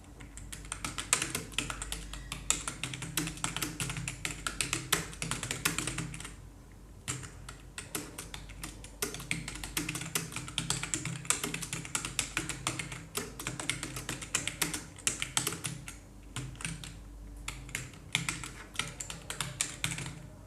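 Fast touch-typing on a computer keyboard during a timed typing test, at about 59 words per minute: a dense, continuous run of key clicks that thins briefly about six seconds in and again about sixteen seconds in.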